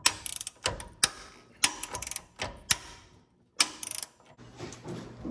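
Hand ratchet clicking in short bursts of rapid clicks as it turns a bolt through a long extension and swivel socket, with quiet pauses between strokes.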